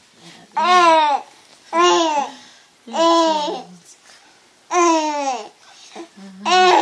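Baby vocalizing with a pacifier in her mouth: five drawn-out wordless sounds, each falling in pitch, about a second apart, the last one longer.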